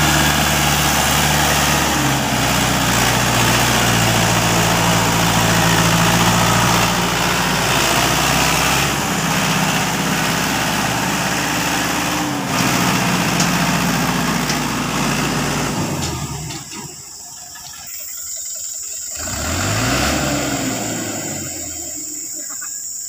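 Farm tractor's diesel engine running hard under load as it hauls a trailer up a dirt track close by, its pitch rising and falling with the throttle. About two-thirds of the way in, it drops off to a fainter, more distant running with a brief rev.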